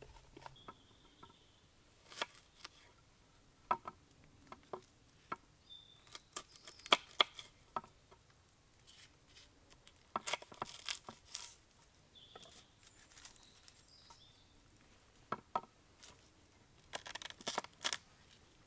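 A knife slicing garlic cloves on a wooden cutting board in short runs of quick cuts, between scattered knocks and clicks of a pan and utensils on a log table. Faint bird chirps now and then.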